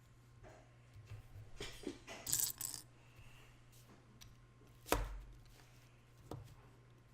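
Small plastic Lego pieces being handled and snapped together: a brief clatter of rattling pieces about two seconds in, then one sharp knock just before the five-second mark, the loudest sound, followed by a few lighter clicks.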